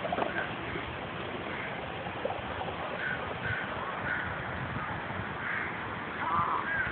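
A bird calling in several short, separate calls over a steady outdoor hiss.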